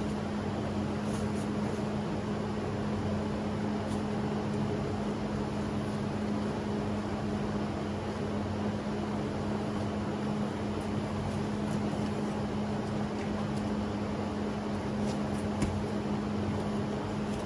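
Steady mechanical hum with a constant low tone, with a few faint taps or scuffs.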